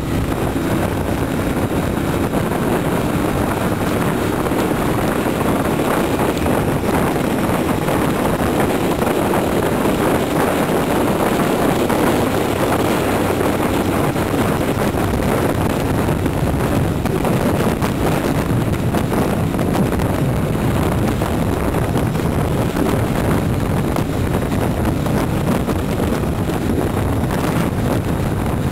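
Wind rushing over the microphone of a camera riding on a motorcycle at track speed, mixed with the bike's engine running steadily under way; the level stays even throughout.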